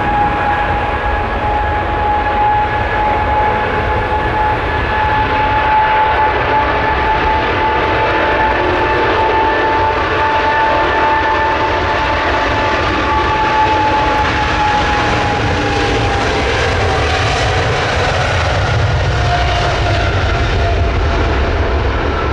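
British Airways Boeing 777's twin jet engines at takeoff power on the takeoff roll: a steady high whine over a deep rumble. In the last several seconds the whine slides lower in pitch and the rumble grows as the jet passes by.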